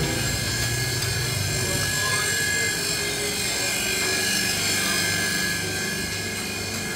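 An engine running steadily with a rapid fluttering pulse and a low hum.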